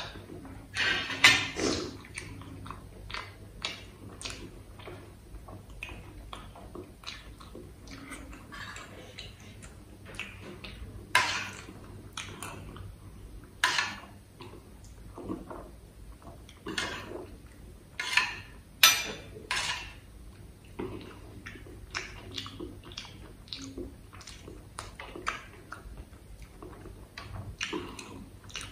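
Steel spoon clinking and scraping against a stainless steel bowl, in irregular sharp clinks a few seconds apart, the loudest about a second in and around the middle, with close-miked eating sounds between them.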